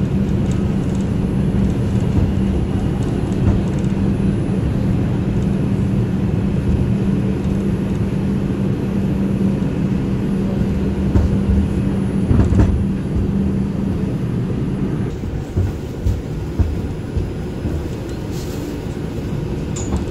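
New York City subway train heard from inside the car on the elevated line: a steady running rumble with a steady hum that cuts out about three-quarters of the way through as the train pulls into a station. A few clicks and knocks follow.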